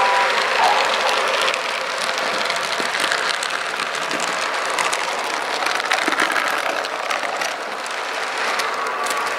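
Model trains running on a layout: a steady hiss full of small clicks, with a faint steady hum underneath.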